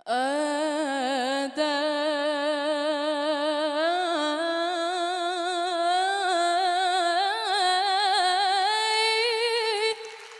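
A girl singing an Arabic song unaccompanied: one long ornamented phrase with a wide, wavering vibrato, climbing gradually in pitch and stopping about ten seconds in.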